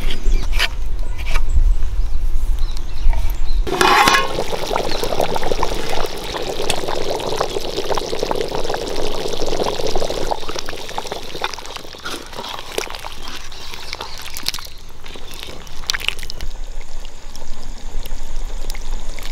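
Knife chopping on a wooden cutting board for a few seconds, then chicken curry boiling hard in a large aluminium pot, a dense steady bubbling that eases off near the end.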